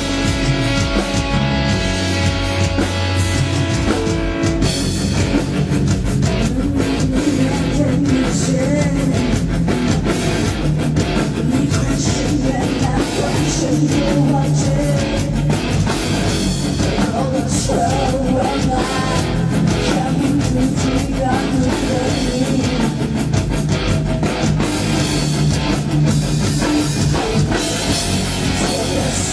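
Metal/rock music with guitar and drums. Held chords open it, then about four and a half seconds in the full band comes in with rapid, driving drum hits.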